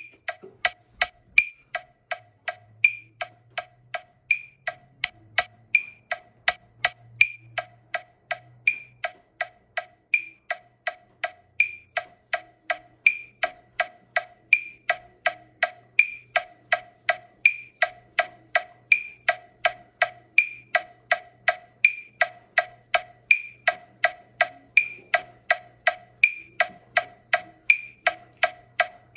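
Metronome clicking at 164 beats per minute, close to three clicks a second, with a brighter accented click on every fourth beat.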